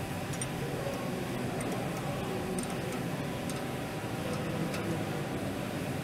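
A few scattered faint metallic clicks of a wrench and fittings on a band-saw blade-guide roller being adjusted, over a steady low background hum.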